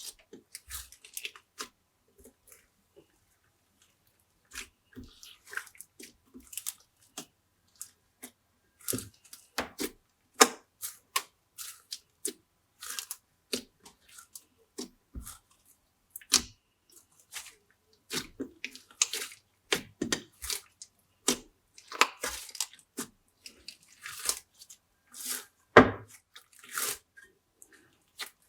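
Glossy slime being squeezed, stretched and folded by hand, giving irregular sticky clicks, pops and crackles, with a short pause a couple of seconds in.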